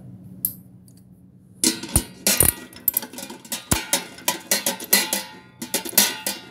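Metal clanks, rattles and scrapes inside a stainless steel hot water urn as the spout's retaining nut is tightened, the urn body ringing with the knocks. The knocks start about one and a half seconds in and come irregularly.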